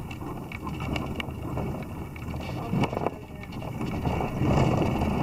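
Wind buffeting the camera microphone: an uneven rumbling rush that swells and dips, with a few faint clicks of handling.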